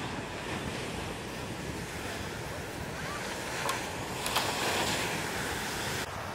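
Heavy shorebreak surf: waves breaking and rushing up the beach, with a louder crash a little past four seconds in as a thick wave pitches onto the sand.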